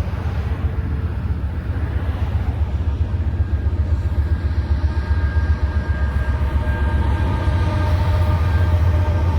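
Intermodal freight train running past with a steady heavy low rumble that grows slowly louder. From about three seconds in, several thin, steady high tones ride over the rumble.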